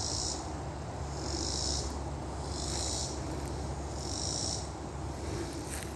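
Insects calling in a rhythmic chorus, a high buzzing pulse about every second and a half, over a steady low rumble.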